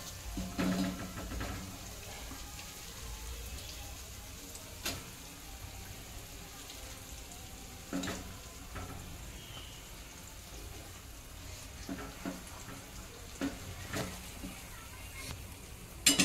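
Mashed potato being stirred into a spiced masala in a hot pan: a faint sizzle under scraping and knocks of the stirring spoon against the pan, a few at a time, the loudest knock near the end.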